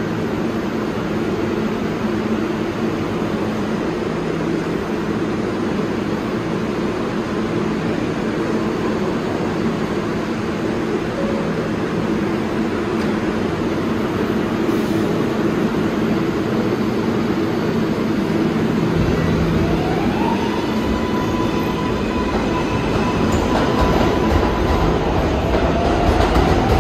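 New York City subway train in the station: a steady hum, then about twenty seconds in the rumble grows louder and an electric motor whine rises in pitch and levels off as a train starts to move, with a second rising whine near the end.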